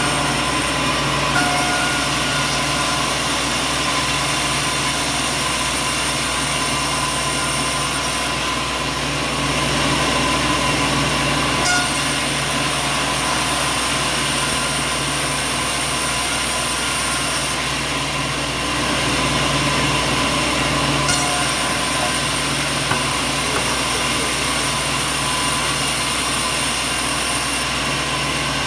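Heavy machinery running steadily: a constant mechanical noise with several steady hums, changing slightly at a few abrupt cuts.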